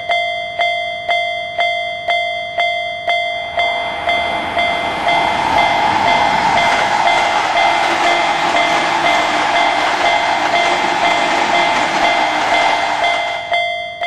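Japanese railroad-crossing alarm bell clanging about twice a second. From about four seconds in, the rushing noise of a train passing through the crossing joins it and holds until near the end.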